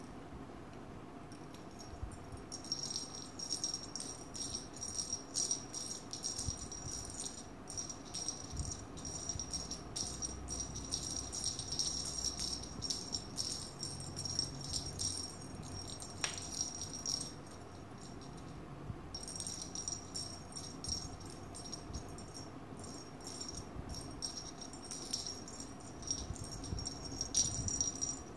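Small jingle bell on the end of a cat wand toy jingling in quick irregular shakes as a kitten bats and bites at it. It starts a couple of seconds in and stops briefly past the middle before jingling again.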